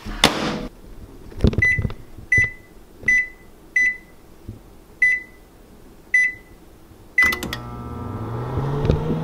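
Microwave oven keypad beeping as its buttons are pressed, about seven short beeps, after a knock near the start. About three-quarters of the way through the oven starts running with a steady hum that rises slightly in pitch.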